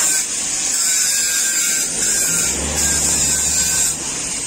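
Cicadas buzzing in a loud, shrill drone that breaks off and starts again every second or so, sliding down in pitch as it fades near the end. A low rumble joins in about halfway through.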